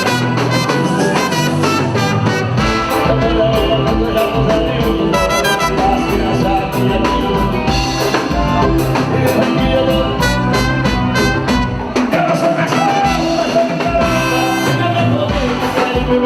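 Lively music with singing and a steady beat.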